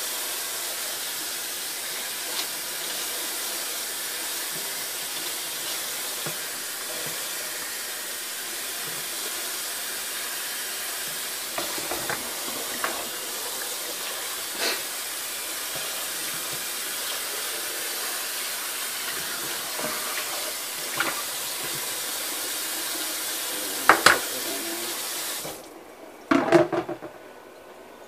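Water running steadily from a kitchen tap, with a few scattered clinks and knocks, shut off suddenly a few seconds before the end, followed by a couple of knocks.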